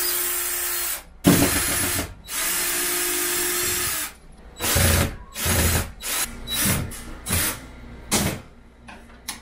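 Cordless drill-driver driving screws through a metal wall rail, with three steady runs in the first four seconds. Then come a string of short trigger bursts as the screws are seated.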